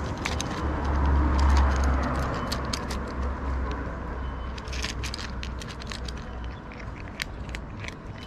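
A cat chewing dry kibble close up, a quick run of small crunching clicks throughout. Behind it a vehicle passes in the street, its low rumble swelling about a second in and then fading.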